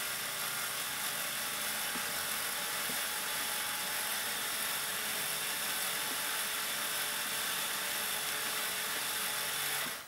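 Battery electric screwdriver's motor and planetary gearbox whirring steadily, running in reverse to lower a model bascule bridge. It cuts off suddenly near the end as the bridge reaches the fully down position.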